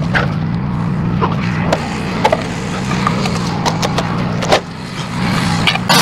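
Wood-Mizer LT15 Go sawmill's engine running steadily at idle, with scattered short knocks and clanks from the log being handled on the steel mill bed.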